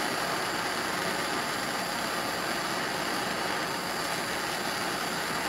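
Gas torch flame burning with a steady, even hiss, heating a copper cable lug so solder is drawn into the wire.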